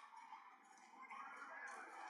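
Near silence: faint, even background noise with no distinct sound.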